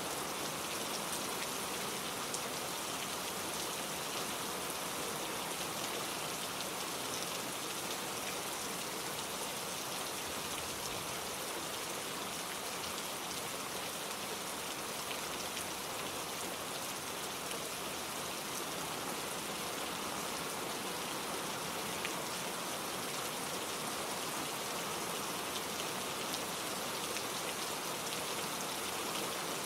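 Steady rain falling, a dense even patter with scattered individual drops ticking on surfaces.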